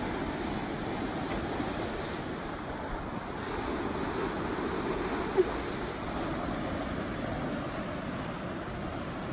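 Ocean surf washing onto a beach, a steady rushing hiss, with a low rumble of wind on the phone's microphone. One short blip about five seconds in.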